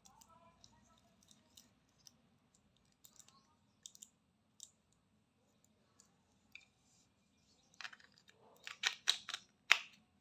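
Plastic shell of a pTron Bassbuds earbud charging case being handled and fitted back together. Scattered light clicks and taps, then a run of louder sharp clicks near the end as the case halves are pressed shut.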